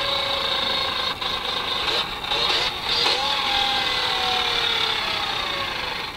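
BMW 325 rally car's straight-six engine heard from inside the cabin as the car slows down, its note falling, with short breaks about one and two seconds in and a brief rise about three seconds in as the gears change down.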